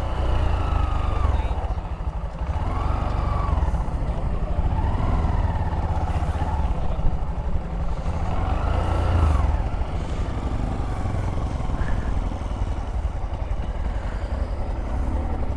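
Motorcycle engine running on the move, its note rising and falling a few times, over a steady low wind rumble on the microphone.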